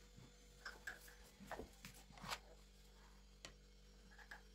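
Near silence with a few faint, scattered clicks and soft rustles of gloved hands handling a sponge cake layer.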